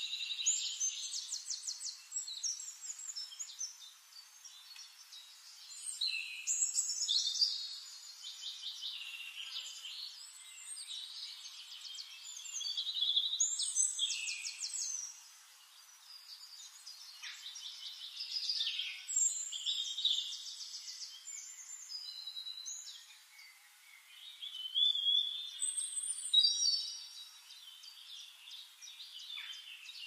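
Songbirds singing: a dense chorus of high, thin chirps and fast trills, several voices overlapping, swelling in bouts a few seconds long with quieter spells between.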